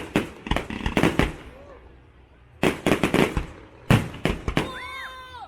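Fireworks going off in a rapid series of sharp bangs and crackles, in three quick clusters. Near the end comes a high-pitched sound that rises and falls.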